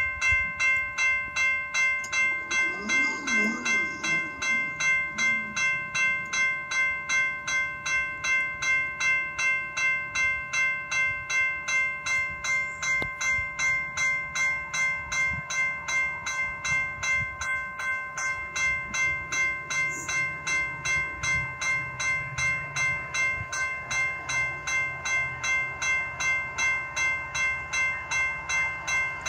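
Railway level-crossing warning bell ringing steadily at about two strokes a second, the sign that the crossing is activated for an approaching train.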